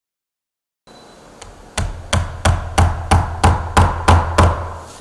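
After a brief dead silence, a hammer taps a small nail home with about nine even strikes, roughly three a second.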